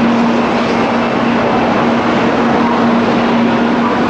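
300 series Shinkansen train moving past at close range, a steady rushing of wheels and running gear with a steady low hum underneath.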